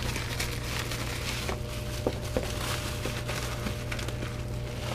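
Bubble-wrap packing rustling and crackling in a cardboard box as a hand digs through it, over a steady low hum.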